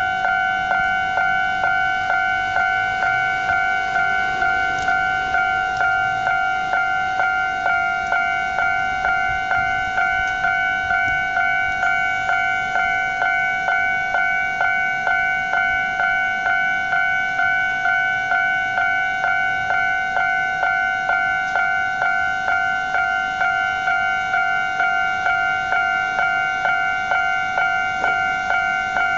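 Japanese railway level-crossing warning bell ringing steadily, an electronic two-tone ding repeating about twice a second. It signals an approaching train, with the barriers down.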